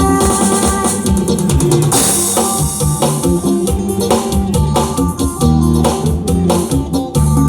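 Instrumental break of a live band accompanying a Thai lae song: electronic keyboard playing held notes over a drum kit beat, with a cymbal crash about two seconds in.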